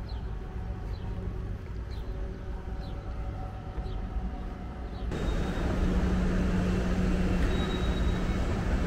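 Class 387 electric train pulling into a station platform: a steady low rumble with a faint motor whine. About five seconds in, this gives way abruptly to the louder, steady hum of a moving escalator in a station concourse.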